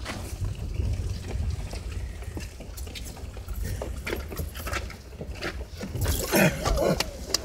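Interior noise of a moving vehicle on a wet, snowy road: a steady low engine and road rumble with tyre hiss, and scattered rattles and clicks that grow busier and louder about six seconds in.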